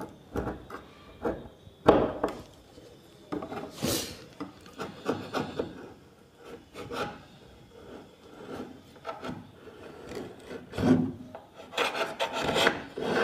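Utility knife blade scraping and trimming the overhanging PVC edge strip along a plywood drawer edge: a run of irregular scraping strokes, one sharper about four seconds in.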